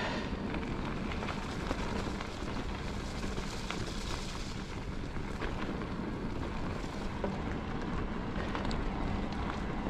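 E-bike riding noise: a steady rush of wind on the action-camera microphone and tyre rumble, with scattered small clicks and ticks.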